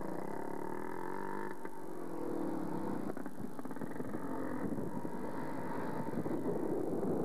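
Motor vehicle engine running while driving, its pitch rising and falling with changes in speed, over steady road and traffic noise.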